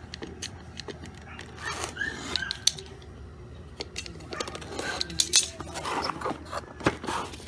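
Sealed packaging being opened and a metal rack patch panel handled: rustling wrap with scattered small clicks and knocks, busier in the second half.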